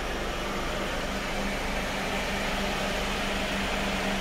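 Hyundai Porter box truck idling steadily: an even hum with a broad hiss over it, heard in and around the open cab.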